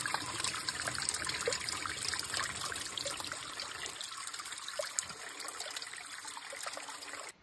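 Thin trickle of water splashing down a narrow rock channel at a small waterfall running low on water, steady with many small splashes. It cuts off suddenly near the end.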